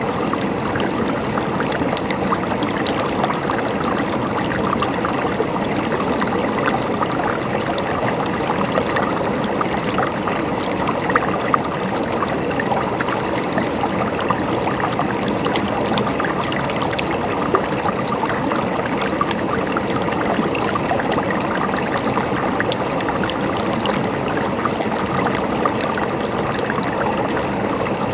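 Water of a stream running steadily.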